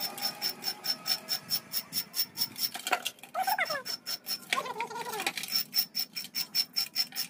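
Rapid, even scraping strokes, about four or five a second, as a steel rolling-shutter coil spring is scraped clean of old black grease and dirt along its coils. Twice in the middle, short wavering high cries rise over it.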